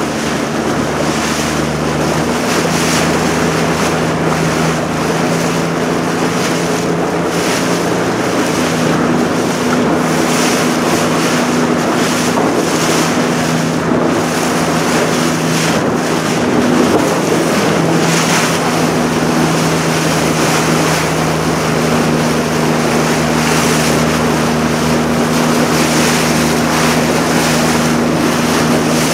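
A motorboat's engine running at a steady hum, under wind buffeting the microphone and water rushing along the hull.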